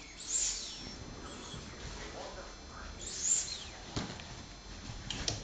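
Two dogs playing: two short, high squeals that fall in pitch, about three seconds apart, and a single knock about four seconds in.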